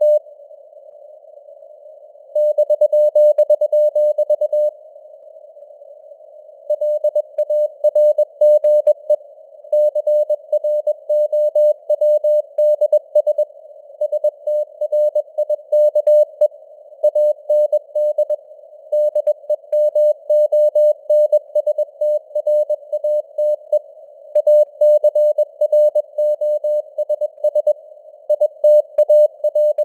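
Morse code sent at 21 words per minute as a rapidly keyed single-pitched tone, inside a narrow band of hiss that simulates radio noise. The keying pauses twice near the start, for about two seconds each time, with the hiss continuing.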